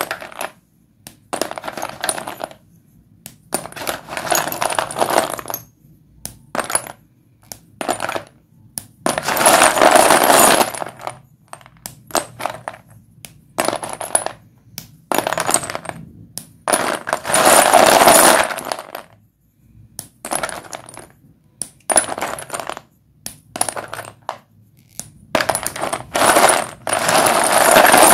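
Sticks of white dustless chalk being broken and crumbled: sharp snaps and clicks mixed with crunchy grinding bursts of a second or two, the longest around ten seconds in, about eighteen seconds in and near the end.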